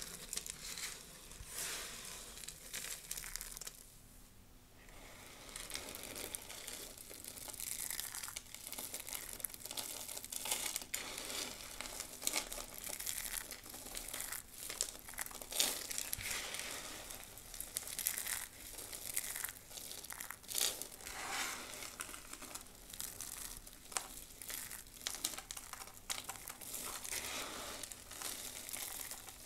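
Dry soap crushed and crumbled between the fingers: a steady run of crisp crackling crunches and small snaps, with a short quieter lull about four seconds in.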